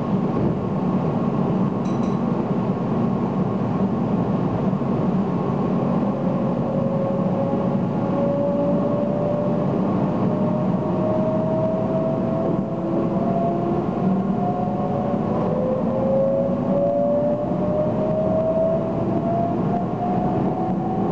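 Inside an electric commuter train pulling out of a station: a steady hum and running noise, and from about six seconds in, the traction motors' whine rising slowly in pitch, several tones climbing together as the train gathers speed.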